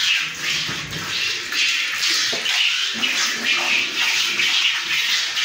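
Milk squirting by hand from a cow's teats into a metal pail, each pull of the teat giving a short hissing squirt in a steady rhythm.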